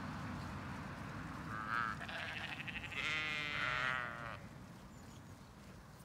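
Zwartbles sheep bleating: a short bleat about one and a half seconds in, then a fluttering one, and a longer, louder quavering bleat near the middle.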